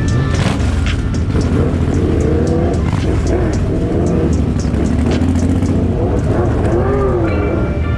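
Suzuki M109R's big V-twin engine revving up and falling back several times while riding.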